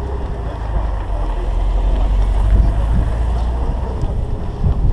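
Wind buffeting the camera's microphone, a loud, uneven low rumble, over a faint murmur of many voices.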